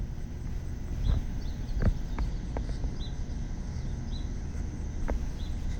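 Outdoor ambience: a steady low rumble with a few short, high bird chirps at intervals and some scattered light clicks.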